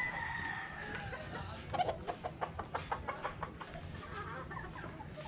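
Chickens: a long, slightly falling rooster crow, then a quick run of clucks at about five a second.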